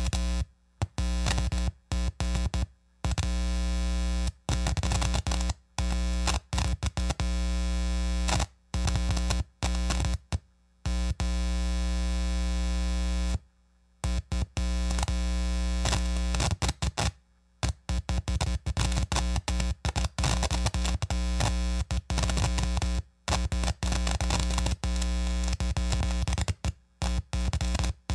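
Speaker buzzing and crackling from a loose, half-inserted aux plug: a loud electrical hum with hiss and static that cuts out and snaps back on again and again at irregular moments, the sign of an intermittent connection at the jack.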